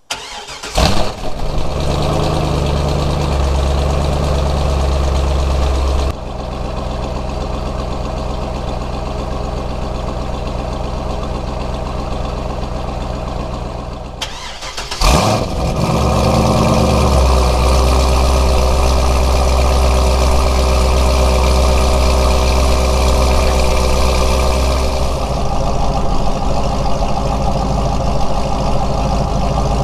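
Car engine started about a second in and idling. It is shut off about 14 seconds in, started again a second later, and idles higher before settling about ten seconds after that.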